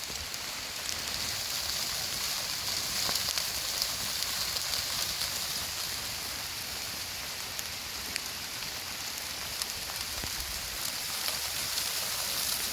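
Steady rain falling, a dense patter of many small drops hitting surfaces.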